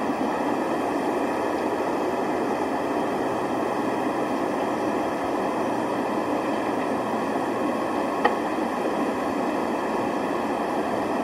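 Steady rushing city street noise, with one short sharp click about eight seconds in.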